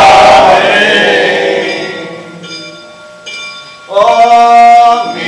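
A group of men singing a Catholic prayer to Our Lady together. A long held note fades away in the first seconds, and after a quieter stretch the singing starts again loudly about four seconds in, on a steady held note.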